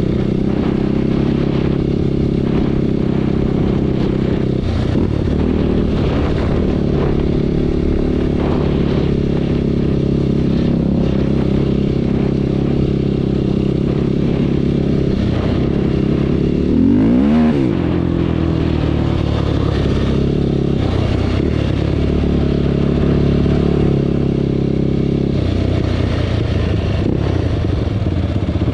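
Engine running steadily, with a brief dip and rise in pitch about 17 seconds in.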